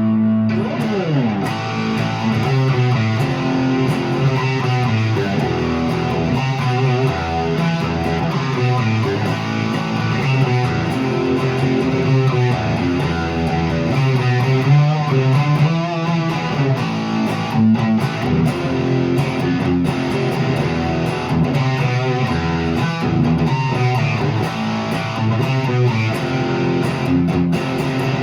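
1989 Fender HM Strat electric guitar played through an amplifier, a continuous run of picked and strummed notes and chords. It opens with a falling pitch glide over about a second and a half.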